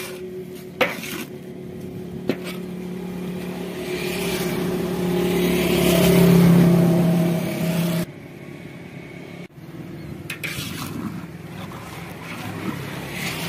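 Metal spatula knocking twice against a large iron karahi and stirring melting jaggery syrup as it bubbles, over a steady motor hum that swells and then cuts off abruptly about eight seconds in.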